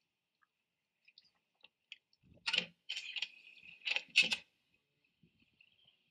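A small deck fitting being handled, giving a handful of sharp metallic clicks and clinks about two and a half seconds in and again around four seconds in.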